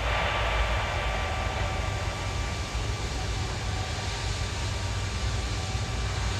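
Airbus A330-300's Rolls-Royce Trent 700 jet engines spooling up to takeoff thrust at the start of the takeoff roll: a steady jet roar with a high fan whine that swells suddenly at the start and then holds.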